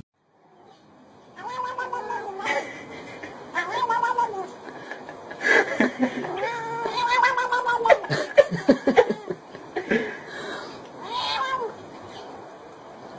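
A cat yowling in a series of about five long, drawn-out calls, each rising and falling in pitch, with some short clicks in between.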